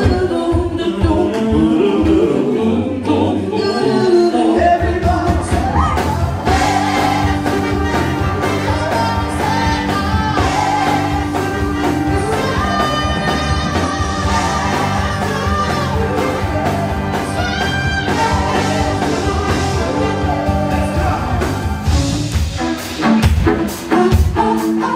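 Live band playing a song with a singer: held chords under a moving vocal line, with drum hits in the first couple of seconds and again near the end.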